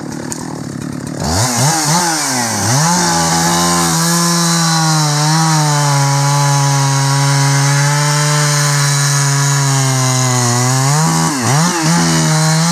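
Husqvarna chainsaw revving up from a low idle about a second in, then held at full throttle while sawing into the base of a big oak trunk. Its pitch dips briefly near the end and picks up again.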